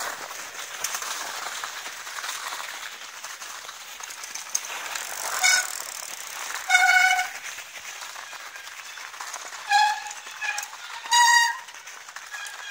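Bicycles riding over a packed-snow trail, with a steady rush of tyre and wind noise. Five short, high squeals, each held at one pitch, come about halfway through and near the end.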